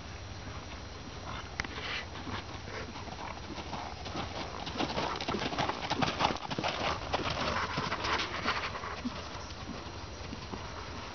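Hoofbeats of a dressage horse trotting on gravel arena footing. They grow loud as the horse passes close by, from about halfway through, then fade again near the end.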